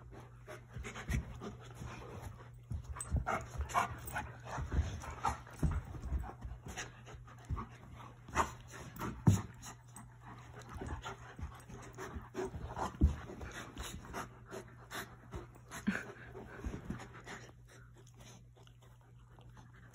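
Alaskan Malamute and Newfoundland puppy panting while they wrestle, with irregular soft knocks and scuffles from their play; the noises thin out near the end as they settle.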